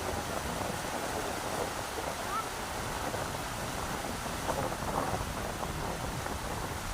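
Rushing river water making a steady, even rush, with strong wind buffeting the microphone and a few small surges about two-thirds of the way through.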